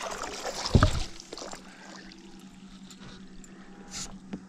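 A northern pike splashing at the surface as it is swung aboard an aluminium fishing boat, with one loud thump about a second in, then a few lighter knocks as it lies on the deck.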